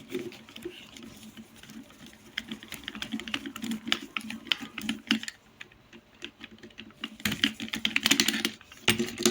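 Small irregular clicks and ticks of a screwdriver and metal parts as the screws holding a washing-machine motor's carbon brushes are undone, with denser runs of clicking.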